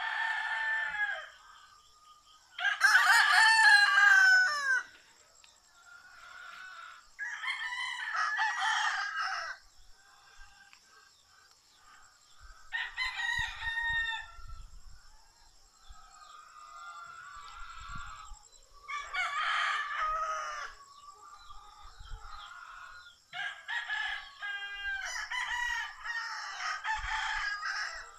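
Rooster crowing again and again, about six crows of one to two seconds each, the loudest about three seconds in. A faint steady high whine runs underneath.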